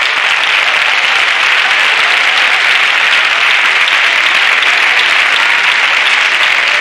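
Studio audience applauding: loud, dense, steady clapping that holds throughout.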